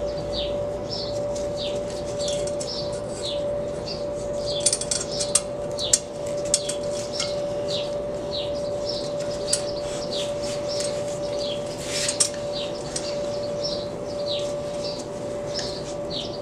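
A bird chirping over and over, short falling chirps about twice a second, over a steady hum. A few light metal clinks sound about five seconds in and again near twelve seconds, as a bolt is fitted by hand at the turbocharger.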